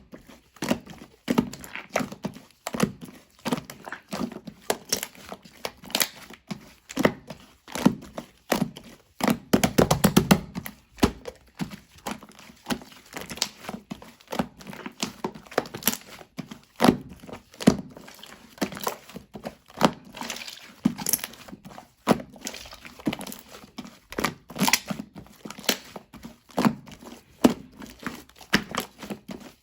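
Slime being squeezed, folded and poked by hand, making quick irregular clicks and pops, with a denser, heavier stretch of squishing about ten seconds in.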